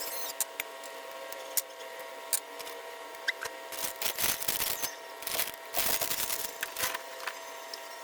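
Kitchen utensils working over a steady hum: scattered sharp clicks, then a busier run of short scrapes and taps from about halfway through until near the end.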